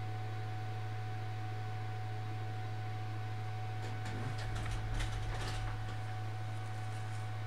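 Rustling and handling noise with a low bump, between about four and six seconds in, as a cross-stitch piece in a plastic embroidery hoop is lowered and moved away. Under it runs a steady low hum with a faint higher tone.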